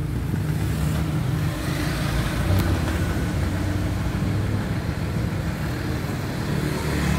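A vehicle engine running steadily, a low even rumble.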